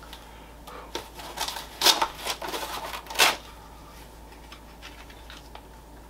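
Nylon fanny pack being broken open and a pistol drawn from the Kydex holster inside it: a run of short scraping rasps of fabric and plastic, the loudest about two and three seconds in, then a few faint ticks.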